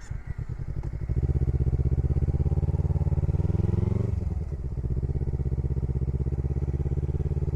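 Kawasaki Versys-X parallel-twin motorcycle engine running as the bike rides off at low speed. It picks up about a second in and the revs climb, then drop sharply about four seconds in before it runs steady again.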